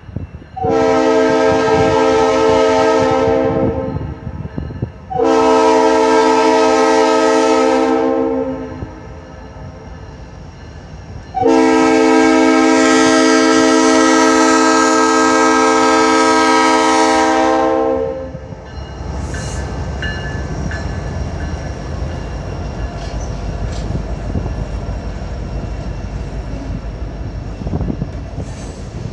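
Locomotive air horn of a CN freight train blowing a multi-note chord in three blasts: two long ones, then a much longer one. The horn is followed by the low, steady rumble of the train rolling past.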